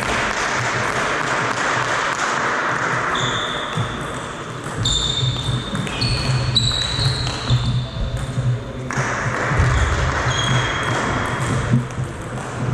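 Table tennis rally on a wooden sports-hall floor: the celluloid ball clicking off bats and table, with short high squeaks from the players' shoes in the middle of the rally.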